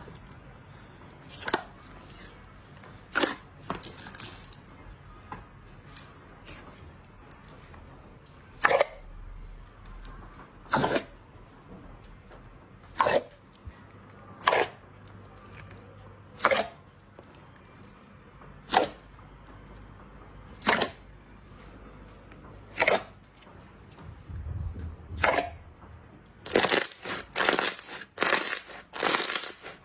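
Slime being pressed and squished by hand, giving a sharp wet pop about every two seconds, then a quick run of crackling pops near the end.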